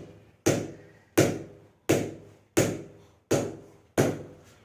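A cricket ball is bounced repeatedly off the face of a Spartan MSD English willow cricket bat to test its ping, about one knock every 0.7 seconds, six times. Each knock rings briefly and fades. The presenter calls it a sweet sound.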